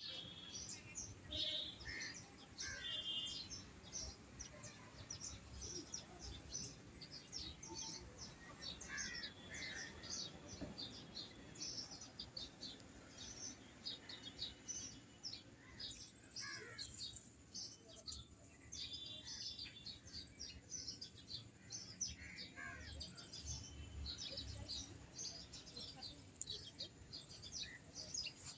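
Many small birds chirping and calling at once, a dense run of short, quick chirps throughout, over a low steady background rumble.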